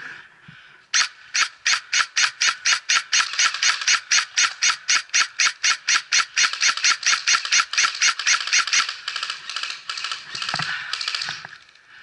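Airsoft gun firing a long, even string of shots, about five a second, for roughly eight seconds before it stops.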